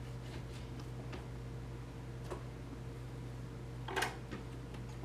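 Faint handling sounds of a boneless pork heel being tied up with butcher's twine: light scattered ticks and rubs, with one short, louder scuff about four seconds in, over a steady background hum.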